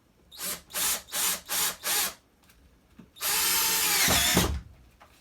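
Cordless drill driving a drywall screw into sheetrock. Five short trigger pulls start the screw, then one longer run drives it home, the motor's pitch dropping as it ends. The screw sinks deep into the board.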